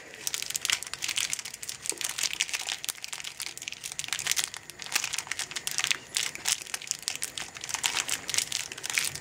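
Plastic candy wrappers crinkling and tearing as fizzy chewy candies are unwrapped by hand, a dense run of irregular crackles.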